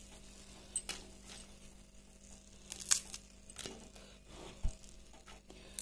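Crisp deep-fried rice-and-urad-dal fritters crackling as they are pressed between fingers: a handful of short, sharp crunches scattered through, the loudest about three seconds in.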